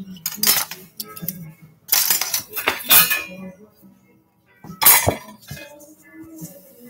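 Kitchen utensils and dishes clinking and knocking while salt dough ingredients are mixed: several sharp strikes, the loudest about five seconds in.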